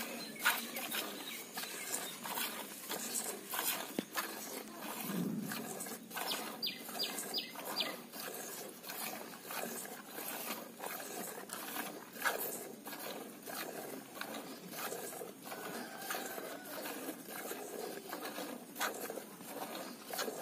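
Cow being milked by hand into a steel pail: milk squirts striking the metal pail in a steady run of short hissing spurts, roughly two a second.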